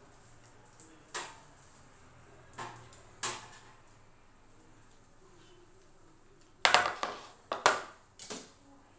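Metal kitchen tongs clicking and scraping against a metal oven baking tray and a glass dish while picking up roasted vegetables. There are a few light clicks in the first few seconds, then a cluster of four or five louder clanks near the end.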